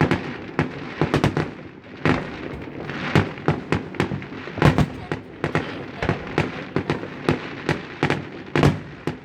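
Aerial fireworks going off in quick, irregular succession: many sharp bangs, several a second, over continuous crackling, with a few louder reports standing out.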